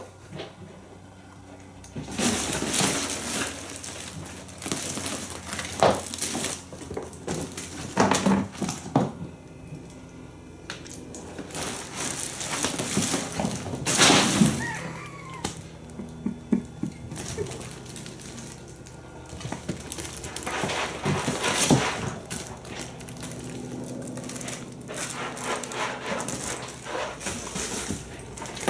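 Kittens playing in and around a fabric cat tunnel and scratching posts. Irregular rustling, crinkling and scrabbling comes in bursts, the loudest about halfway through.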